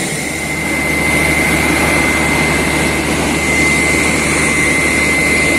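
Borewell drilling rig and its air compressor running loudly and steadily, with a low hum and a steady high-pitched whine.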